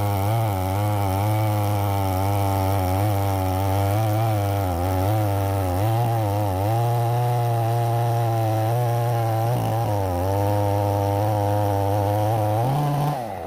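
Stihl 070 two-stroke chainsaw running under load on an Alaskan chainsaw mill, ripping through a black walnut log. The engine pitch wavers slightly as the bar cuts, then rises briefly near the end.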